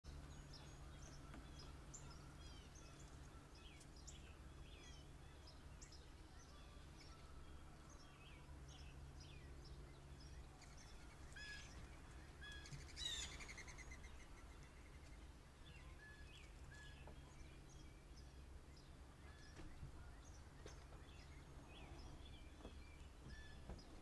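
Faint chorus of small birds chirping, short scattered calls, with one louder call about thirteen seconds in, over a low steady hum.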